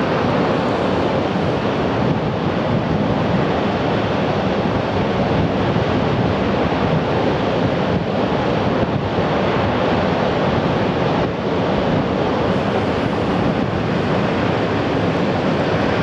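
Steady rushing roar of water jetting from a concrete dam's outlet into the river, mixed with wind buffeting the microphone.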